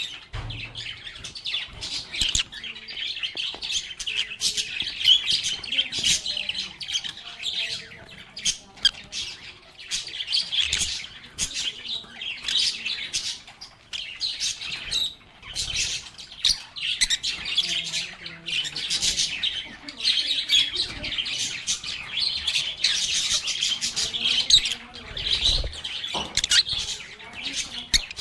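A group of lovebirds chirping and squawking continuously in dense, overlapping chatter of short, sharp calls.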